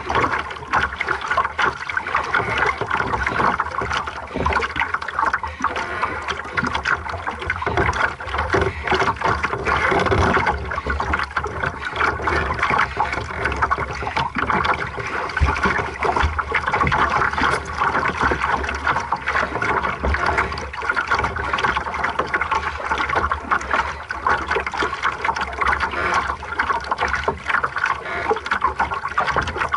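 Lake water rushing and splashing steadily against the hull of a small sailing dinghy under way, heard close up at the bow, with a low rumble underneath.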